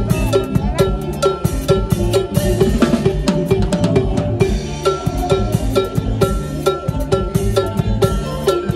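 A drum kit played close by in a live band: busy snare, bass drum and cymbal strokes over steady held band notes.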